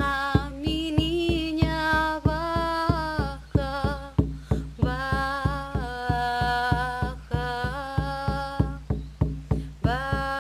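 Music: a deep drum struck in a steady beat, about four strokes a second, under long held melodic notes that step from pitch to pitch. The notes come from a devotional chant song to the ancestors.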